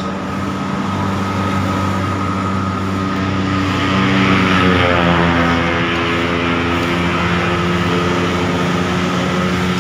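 Road traffic close by: a motor vehicle's engine running, loudest as one vehicle passes about four to five seconds in, its pitch falling as it goes by.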